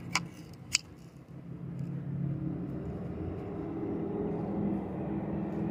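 A few sharp clicks in the first second, then a motor vehicle's engine humming steadily and growing gradually louder as it draws nearer.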